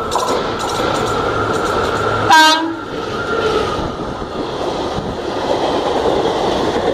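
Express passenger train running through a station at speed, its wheels clattering over the rails. About two and a half seconds in, the electric locomotive gives one short, loud horn blast.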